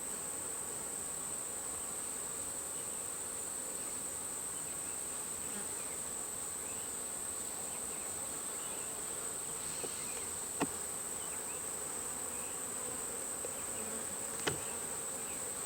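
Honeybees buzzing around an opened hive in a steady hum, with a steady high-pitched insect trill running underneath. Two sharp clicks come about ten and fourteen seconds in.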